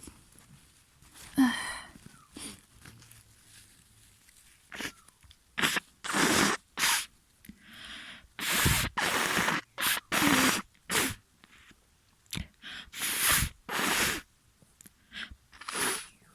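A person with a congested, snotty nose sneezing: one loud sneeze with a voiced cry about a second and a half in, then a run of short, noisy nasal bursts and sniffs through the second half.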